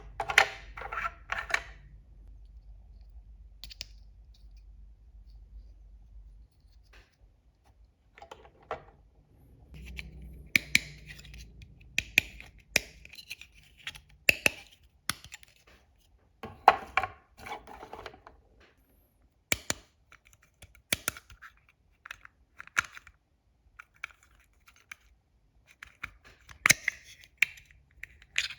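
Small plastic toy kitchen pieces and their packaging being handled: irregular sharp clicks and taps with short rustling, scraping bursts. A faint low hum stops about six seconds in.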